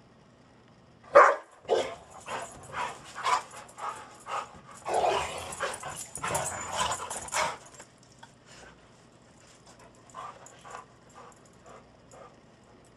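A golden retriever and a black Labrador playing rough, with short barks and yips in quick bursts. The loudest comes about a second in, the busiest stretch is in the middle, and it dies down to faint sounds in the last few seconds.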